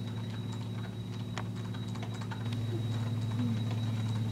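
Steady low electrical hum with a faint high whine, under scattered light clicks and taps; the hum grows a little louder about halfway through.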